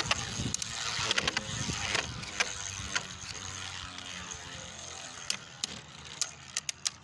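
Two Beyblade spinning tops whirring and grinding on a plastic stadium floor, with sharp clicks as they strike each other and the walls. The whirring gradually gets quieter as they slow.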